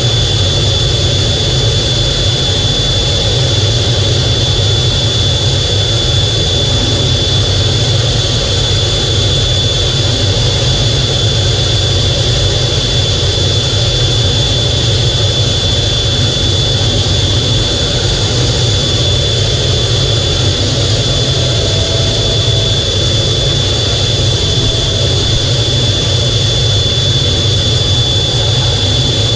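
Twin jet engines of an F/A-18 in flight, heard inside the cockpit as a steady loud rumble and rush of air with a constant high whine over it.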